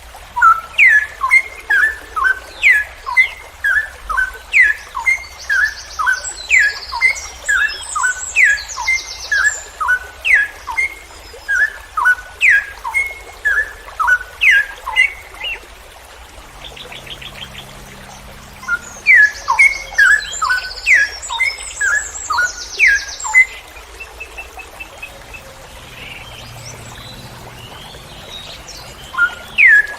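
Straw-headed bulbul (cucak rowo) singing a long run of loud, quick falling whistled notes, about two a second. It stops for a few seconds about halfway through, then starts again. Higher buzzy trills come in twice.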